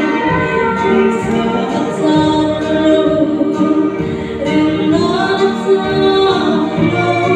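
A group of voices singing a Christian song together, holding long notes.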